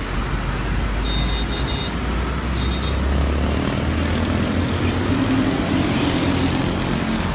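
Roadside traffic on a busy road: buses, vans and motorcycles idling and driving past, with a steady low engine rumble. A few short high beeps come about a second in and again near three seconds.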